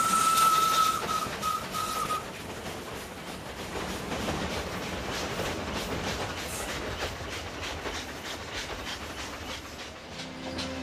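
Steam locomotive's whistle holding one long note that breaks into two short toots about two seconds in, then the train running and drawing away, its rumble and clicking wheels fading.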